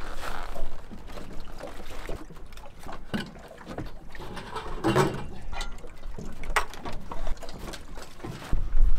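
Scattered knocks, clunks and rustles of gear being handled and footsteps on a floatplane's aluminium float, the loudest clunk about halfway through. Wind rumbles on the microphone and gusts stronger near the end.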